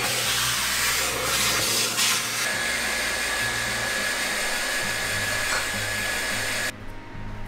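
A vacuum cleaner sucking sand out of a plastic dog kennel. About two and a half seconds in, it gives way to a hand-held hair dryer blowing on a freshly bathed Border Collie's coat, with a steady high whine, which cuts off suddenly near the end.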